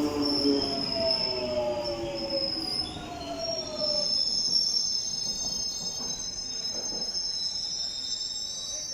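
London Underground Jubilee line train braking into the platform. Its motor whine falls in pitch over the first few seconds, then a high-pitched squeal rises from the brakes and wheels as it slows to a stop.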